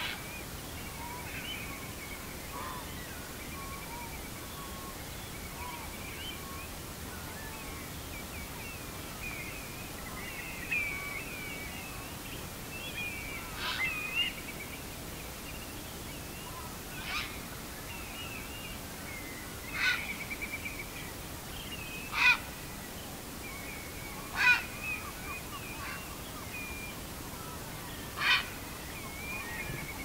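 A flock of shorebirds, sandpipers and plovers, keeps up many small overlapping chattering calls. From about halfway a loud, harsh 'gyau' call comes about seven times, two to three seconds apart, and moves across; the recordist takes it for a grey heron.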